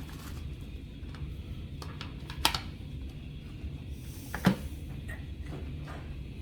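Tools and cases being handled and set down: two sharp clacks about two seconds apart among small clicks and rustles, over a low steady hum.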